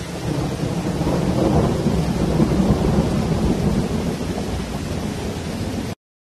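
Deep rumbling intro sound effect with a hissy top, swelling over the first two to three seconds, easing off, then cutting off abruptly near the end.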